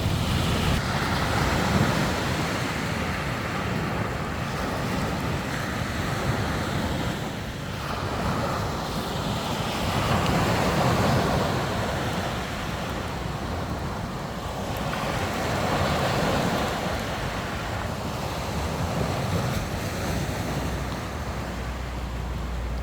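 Sea waves breaking on a beach, the surf swelling and fading every few seconds, with wind rumbling on the microphone.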